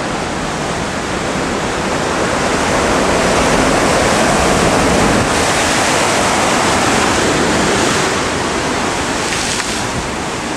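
A big ocean wave surging up a narrow rock channel, its white water rushing and churning. The rush builds about two seconds in, holds, and eases near the end.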